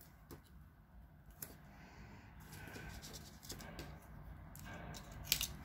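Faint rustling and a few soft clicks of hands handling card and a roll of narrow adhesive tape, with a sharper cluster of clicks near the end as small snips are taken up to the tape.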